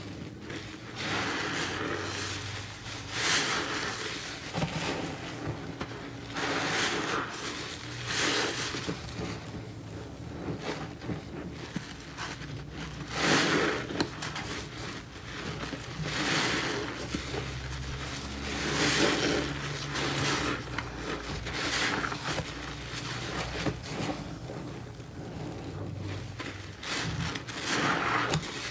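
Soapy sponges being squeezed and wrung in a sink full of thick suds and water: repeated wet squelching and sloshing, one squeeze every one to three seconds.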